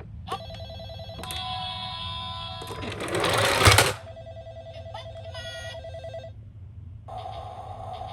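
Electronic siren and sound effects from battery-powered toy ambulances: trilling, buzzy tones that start and stop, with a short run of stepped chime tones a little after the middle. A loud burst of rushing noise about three seconds in lasts roughly a second.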